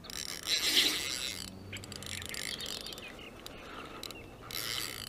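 Fishing reel ticking and whirring as a hooked carp is played, in two spells: one in the first second and a half and another shortly before the end.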